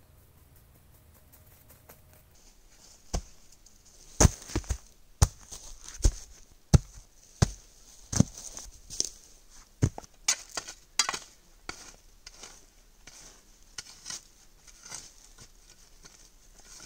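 Shovel digging out a campfire pit: repeated sharp stabs and scrapes of the blade into ash and soil, with scoops tossed aside. The strikes begin about three seconds in and come irregularly, one or two a second.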